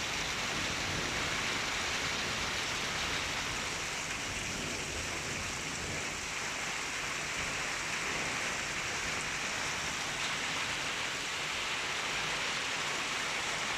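Heavy hailstorm: hail and rain pouring down in a steady, dense hiss with no letup.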